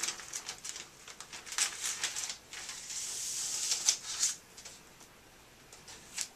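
Clear plastic archival photo bag crinkling and rustling as gloved hands handle it, with a steadier sliding hiss for nearly two seconds in the middle.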